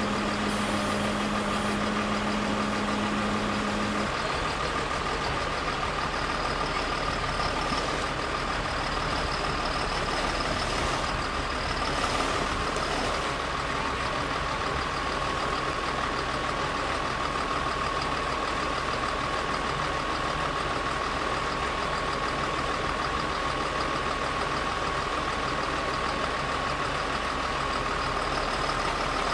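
Heavy construction machine's engine running steadily, with a constant high whine over the engine noise.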